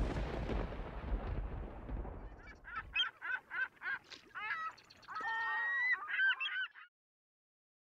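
A low rumbling noise fades away and stops about three seconds in. Then comes a run of honking animal calls, quick single calls at first and then several overlapping, which stops a second before the end.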